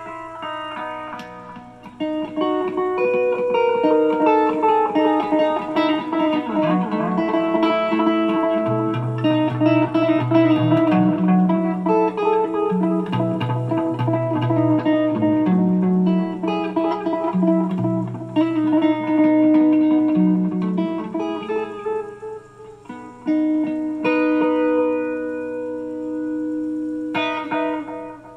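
Electric guitar played through a pedalboard of effects: picked single-note lines over sustained, ringing notes, with a chord struck near the end that rings and dies away.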